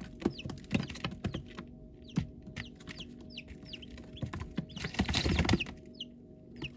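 Baby chicks peeping: short, high peeps that slide down in pitch, several a second, over scattered soft knocks. A louder burst of rustling comes about five seconds in.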